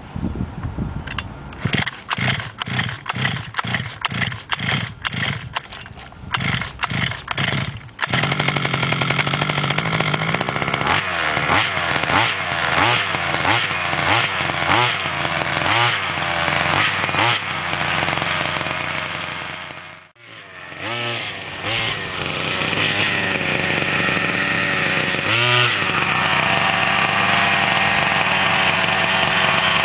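Small two-stroke petrol engine of a 1/5-scale RC buggy, just started with the choke coming off. It fires unevenly for the first eight seconds, then catches and runs. The throttle is blipped in a run of rising and falling revs, the engine nearly cuts out about twenty seconds in, and then it picks up and runs steadily at high revs.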